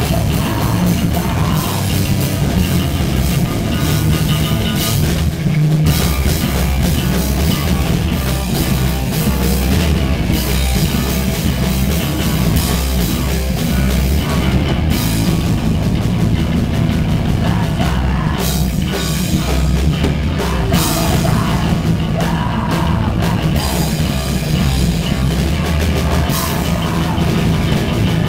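Crust punk band playing live at full volume: electric guitar and drum kit in a dense, continuous wall of sound.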